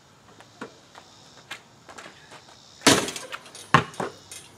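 Basketball bouncing on an asphalt driveway: a few faint taps, then three loud bounces in the last second and a half.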